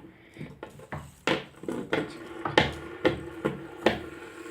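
Fidget spinners being flicked and handled: irregular sharp clicks and knocks, about ten in all, with a faint steady hum that starts about two seconds in.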